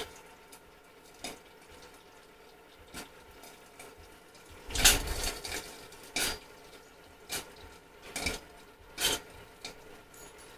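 Kettle-style popcorn machine heating up, its stirring rod turning the kernels in the steel kettle, with scattered metallic clinks and knocks over a faint hum. The loudest cluster comes about five seconds in.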